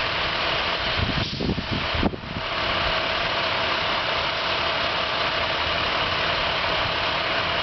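A vehicle engine idling steadily, briefly interrupted about a second in.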